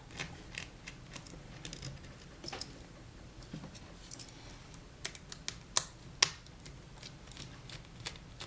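Scattered small clicks and taps of a screwdriver working out the screws that hold a laptop screen, metal on metal and plastic; the two loudest ticks come about six seconds in.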